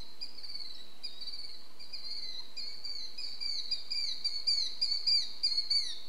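Killdeer calling: a series of shrill notes, each falling in pitch, coming faster and louder over the second half, over a steady high-pitched hum.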